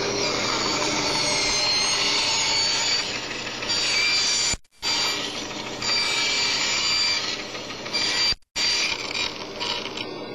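Bandsaw cutting a circle in plywood as the board is turned on a pivoting circle-cutting jig, using a blade a bit wide for the curve. The steady sawing sound carries a thin high whine and cuts out briefly twice, about halfway through and near the end.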